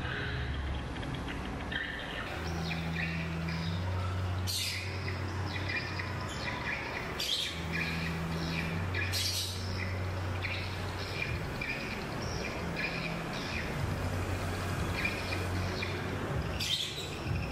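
Birds chirping again and again, over a low hum that comes and goes, with a few brief knocks.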